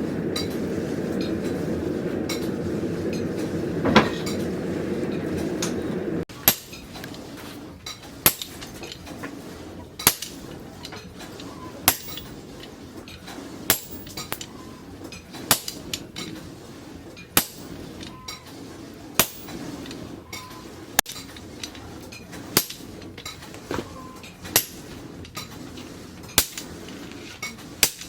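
Hammer blows on steel on an anvil, a sharp ringing strike about every two seconds with lighter taps between. For the first six seconds a steady rushing noise with one metallic strike runs instead, and it cuts off abruptly.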